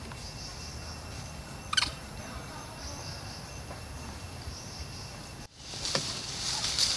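Forest ambience: a steady high insect hiss over a low rumble, with one sharp click about two seconds in. Near the end the sound cuts out for a moment and comes back louder.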